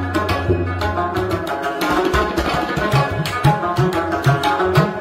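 Background instrumental music: hand drums played in a quick rhythm over a steady low drone, in an Indian classical style.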